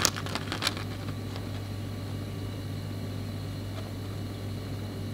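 Steady low hum of room tone, with a few faint clicks and rustles of a paper card being handled in the first second.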